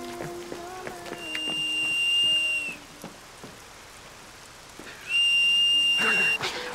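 A whistle blown in two long, steady, high blasts, the first about a second in and the second near the end: a call for help.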